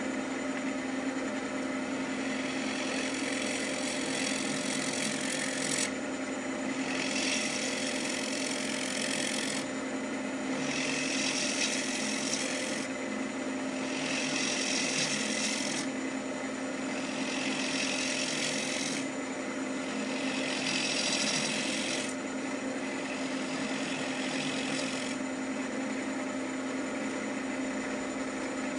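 Wood lathe running with a steady motor hum while a turning tool cuts into a spinning pecan bowl blank, making a scraping hiss of shavings in about seven passes of two to three seconds each. The turner is cutting the recess that the chuck will grip.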